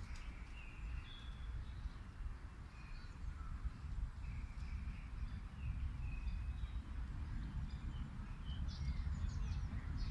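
Small birds chirping in the background, short high calls scattered throughout and a few quick falling whistles about nine seconds in, over a steady low rumble.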